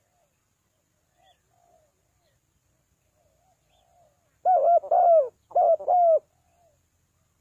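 Spotted dove cooing: a few faint soft notes, then about four and a half seconds in a loud phrase of four low, arched coos in two pairs.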